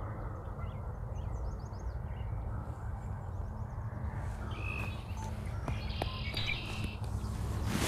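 Small birds chirping in short, scattered bursts, busier in the second half, over a steady low outdoor rumble.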